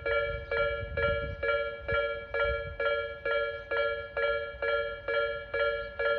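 Japanese railway level-crossing warning bell ringing: a steady ringing strike repeated a little over twice a second.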